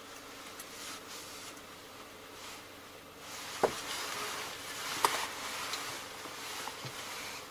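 Faint road noise that swells about three seconds in as a car passes in front, with two sharp clicks about a second and a half apart.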